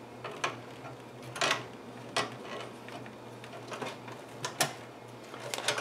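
Hands working inside an open desktop computer case, pushing internal cables aside: a few scattered light clicks and taps of plastic and sheet metal with soft rustling in between.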